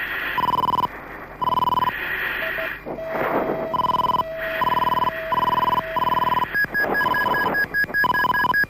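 Mirage 2000 cockpit warning tones sounding during a wheels-up landing. A beep repeats about twice a second, half a second at a time, and from about two-thirds of the way in a higher, quicker pulsing beep takes over.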